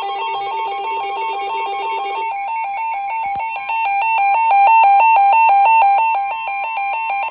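Electronic alert tones from an emergency alert broadcast: a rapid repeating sequence of alternating beeping tones, several notes a second, changing pattern about two seconds in and getting louder after a click about three seconds in.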